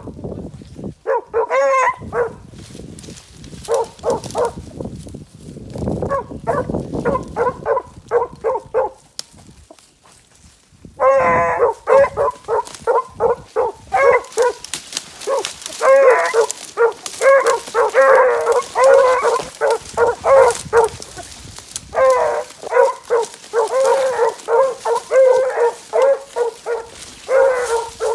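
Field-trial beagles baying on a scent line in short repeated calls. The calls are scattered at first and pause briefly about ten seconds in, then come almost without a break, two or three a second.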